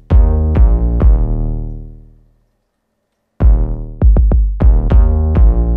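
Electronic background music: heavy bass-drum hits with pitched synth stabs that ring out and fade. It drops to silence about two and a half seconds in and comes back a second later with quicker hits.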